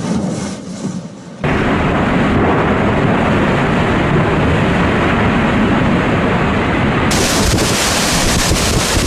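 Strong typhoon wind buffeting the microphone, a loud, dense rumbling noise. It jumps suddenly to full strength about a second and a half in, and a higher hiss joins about seven seconds in.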